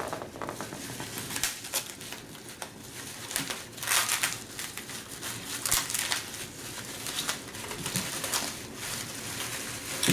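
Hands unwrapping packaging from items taken out of a box: irregular rustling and crinkling of the wrapping, with a few louder bursts along the way.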